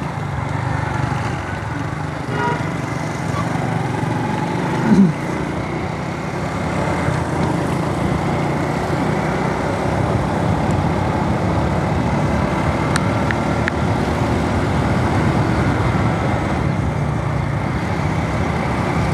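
Honda CD-70 motorcycle's small single-cylinder four-stroke engine running at a steady cruise, heard from the rider's position over a continuous rush of wind and road noise. A brief louder sound about five seconds in.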